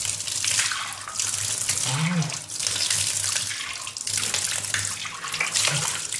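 Tap water running into a sink while a man splashes handfuls onto his face, rinsing depilatory cream off burning skin. The splashing comes in surges about once a second.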